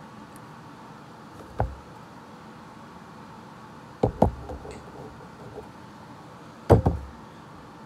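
Four dull knocks over a steady low hiss: one about a second and a half in, a quick pair around four seconds, and the loudest near the end.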